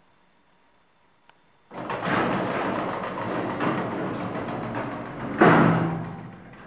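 Passenger elevator's sliding doors closing: a faint click, then a few seconds of rattling, scraping slide, ending in a loud bang as the doors meet, with a short low ring fading after.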